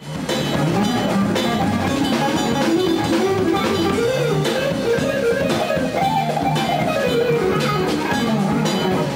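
Intro music: a guitar-led tune with a steady drum beat.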